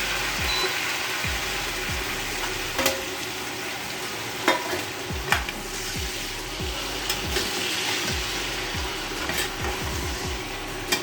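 Onions, garlic and green chilies sizzling steadily in hot oil in a frying pan, caramelizing, with a spatula clicking and scraping against the pan a handful of times as they are stirred.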